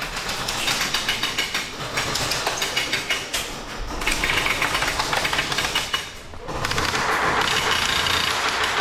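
Airsoft guns firing long full-auto bursts, a fast mechanical rattle, with a short break about six seconds in.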